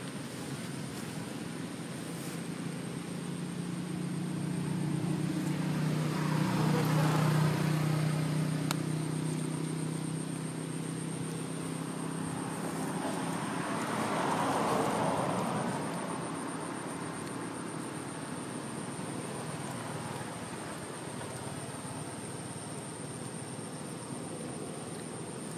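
A motor vehicle passing: a low engine hum swells and fades about a quarter of the way in, followed by a second rushing swell a little past halfway, over a steady high-pitched whine.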